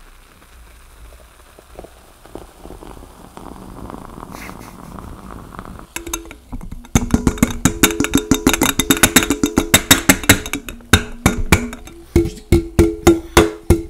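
A fizzy drink poured from a can into a glass, a faint hiss that builds over the first several seconds. About seven seconds in, loud rhythmic music with fast plucked strokes starts over it.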